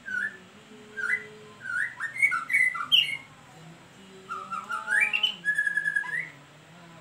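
White-rumped shama singing in two bouts of loud whistled phrases made of gliding notes. The second bout ends in a fast run of rapid repeated notes.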